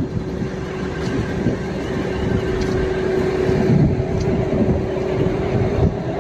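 Diesel power car of a DEMU train idling at a standstill: a steady engine drone with a constant hum.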